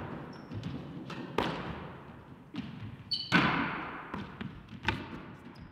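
A squash ball smacking against the walls and floor of a squash court: a handful of sharp, echoing hits spaced a second or so apart, the loudest a little past three seconds in, with brief high squeaks of shoes on the court floor.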